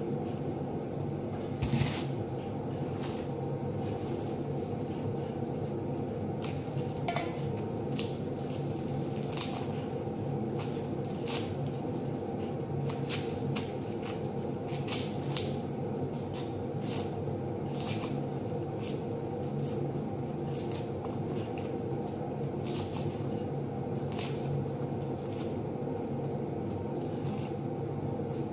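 Dry red onion skins crackling and rustling as they are peeled off by gloved hands and dropped onto a pile of loose skins. The crackles come irregularly, over a steady low hum.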